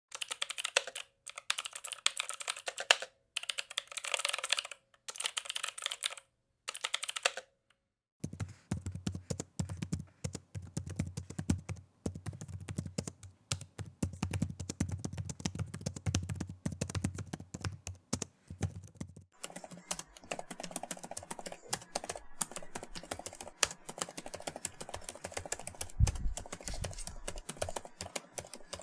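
Typing on a computer keyboard: rapid keystroke clicks, in short bursts with brief silent pauses for the first seven seconds or so, then continuous typing with a fuller tone from about eight seconds in, the tone changing again a little after halfway.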